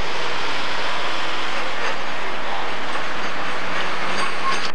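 Pro stock pulling tractor's turbocharged diesel engine running loud and steady at the start line while hooked to the sled. The sound cuts off suddenly near the end.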